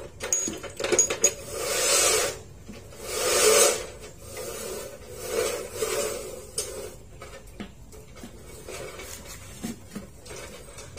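Steel rebar rods clinking and scraping as they are slid over concrete and through a cut-off saw's vise. A few ringing metal clinks come in the first second or so, followed by three drawn-out scrapes, the last about six seconds in, then lighter scraping. The saw is not running.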